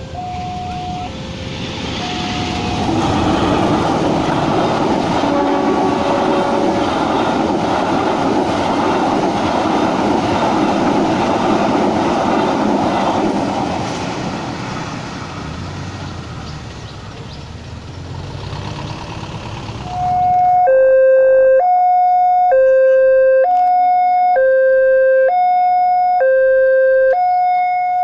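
Railway level-crossing warning bell sounding an electronic two-tone alarm, alternating a higher and a lower tone about once a second. For most of the middle it is buried under a long loud rushing noise that builds and then fades. About two-thirds of the way through the bell comes back loud and clear.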